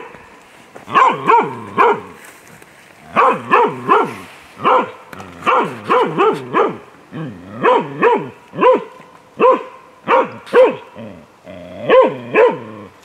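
A halvstövare hound barking over and over in quick runs of two to four barks, with short pauses between runs: baying at moose, the bark of a moose dog holding game.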